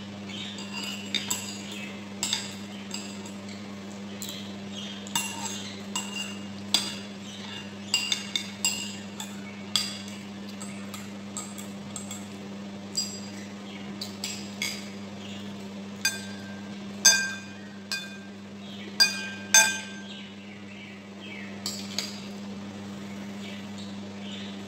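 Metal spoon and fork clinking and scraping against a bowl while eating, in irregular strikes, the loudest ones ringing briefly, over a steady low hum.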